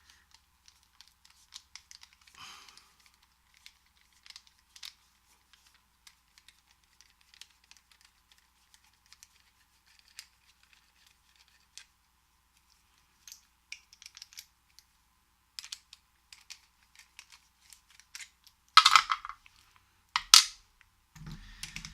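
Small clicks, ticks and scrapes of a padlock and small metal tools being handled while the lock is taken apart, with a louder clatter near the end.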